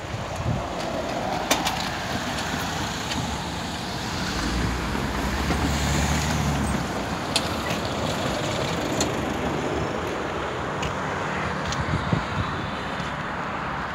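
Road traffic: cars driving over the level crossing, with one engine passing close as a louder low rumble from about four to seven seconds in. Scattered sharp clicks sound over it.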